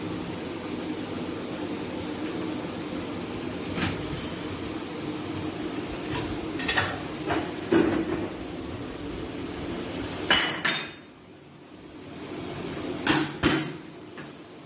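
Knocks and clanks of metal on metal as an aluminium lid is set on a large cooking pot and heavy weights are placed on top to seal it for dum. One clattering clank about ten seconds in rings briefly, and two more knocks follow near the end, over a steady low hum that drops away about eleven seconds in.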